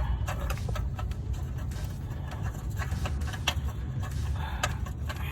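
Light scattered clicks and taps of an oxygen sensor and its wire being handled and threaded by hand into the exhaust pipe, over a steady low rumble.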